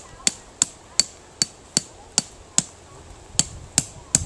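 A hammer driving a tent stake into gravel: about eleven sharp strikes at roughly three a second, with a short pause about three seconds in.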